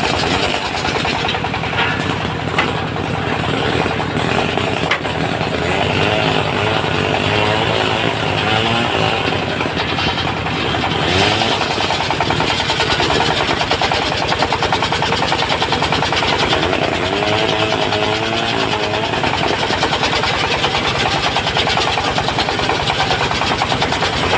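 Engine-driven circular sawmill running steadily while its blade rips a teak beam lengthwise, the pitch wavering as the cut loads the blade.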